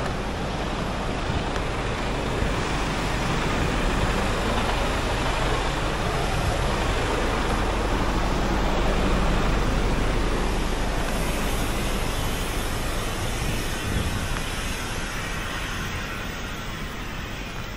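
Steady low drone of an idling diesel truck engine under the rush of river rapids. The engine drone fades about thirteen seconds in and the whole sound grows quieter towards the end.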